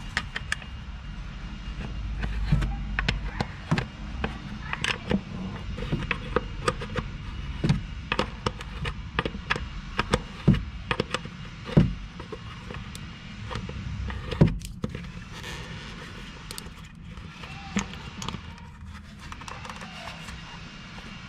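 Small metal wrench clicking and knocking against the air-line fitting on top of a rear air spring, in irregular sharp taps with a few louder knocks between about ten and fifteen seconds in, over a steady low rumble.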